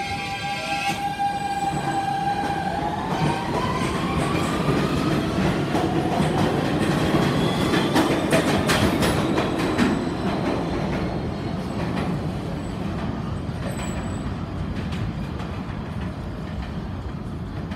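R160 subway train pulling out and accelerating away. The traction motors' whine starts to rise in pitch about two and a half seconds in, over a rumble with wheels clicking across rail joints. The sound is loudest about eight seconds in, then fades as the train leaves.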